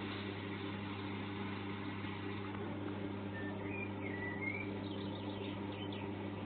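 A steady low hum under an even hiss, with a few short high chirps about halfway through.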